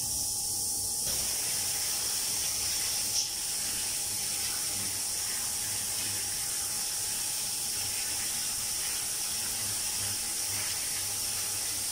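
Running water spraying onto a perforated metal instrument tray of surgical plates in a stainless steel sink, rinsing them. The water comes on about a second in and then runs steadily.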